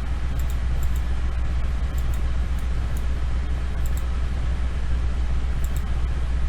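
Steady low background hum with a faint even hiss, and a few faint short ticks every second or two.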